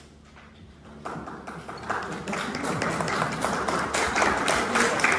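Audience applause after a concert piece: a few scattered claps about a second in, swelling quickly into full, steady clapping.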